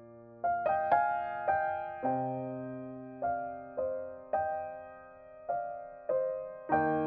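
Background piano music: unhurried single notes and chords, each struck sharply and then ringing away.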